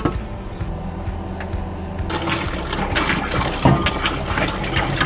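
Water splashing in a stainless-steel caravan sink as a chopping board is rinsed and handled, starting about two seconds in, with a few sharp knocks of the board against the sink.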